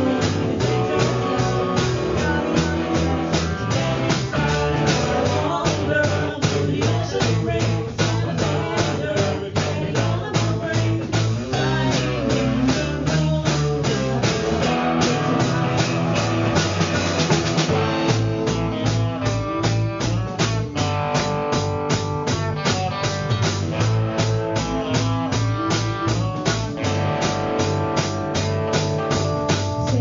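Live rock band playing: electric guitar, electric bass and a drum kit keeping a steady beat.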